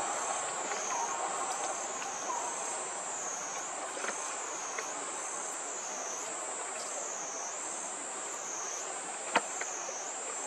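Insects trilling continuously in a high shrill chorus that rises and falls in pitch about once a second. A single sharp click stands out near the end.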